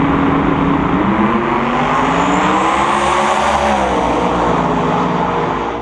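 Two drag radial race cars leaving the line at full throttle and accelerating hard down the strip. Their engines climb in pitch from about a second in, then drop as the cars pull away.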